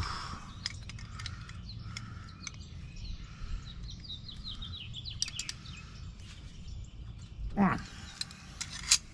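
Small metallic clicks and taps of pliers gripping and bending a part of a Baldwin mortise lock, with birds chirping in the background and a short downward-sliding sound about seven and a half seconds in.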